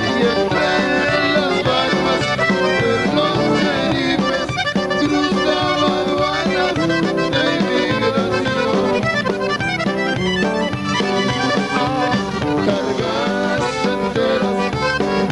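Tejano band playing live, with the accordion leading over the rhythm section.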